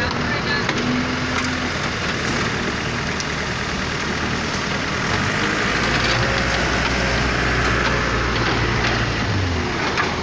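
Wheel loader's engine running while dark sand pours from its tipped bucket into a dump truck's bed, a steady hiss. The engine grows louder about five seconds in and drops back near the end.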